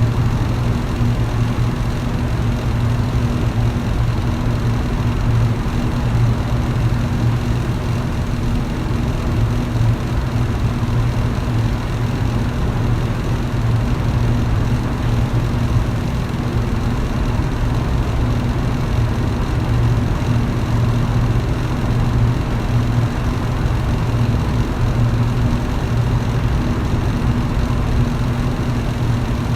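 Electric fan running steadily: a constant low motor hum under an even rush of air.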